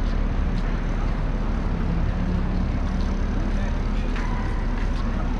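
Steady low outdoor rumble, with a faint click about four seconds in.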